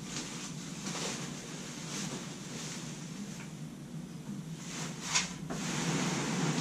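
Dry wood shavings rustling and crunching as handfuls are pulled from a compressed bale and stuffed into a plastic trash can. The loudest rustle comes about five seconds in.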